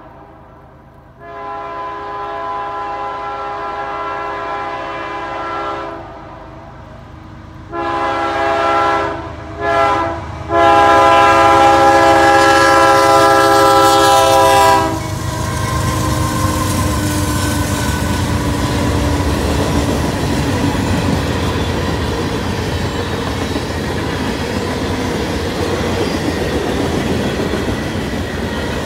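CSX freight locomotive's horn sounding the grade-crossing signal: two long blasts, one short and a final long one, the last the loudest. After it the train rumbles steadily through the crossing, wheels clacking on the rails as the freight cars roll by.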